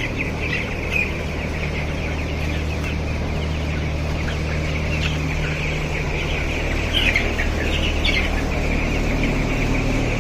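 A large flock of chickens in a poultry house, a dense continuous chorus of high peeping and chirping calls with a few louder calls standing out, over a steady low hum.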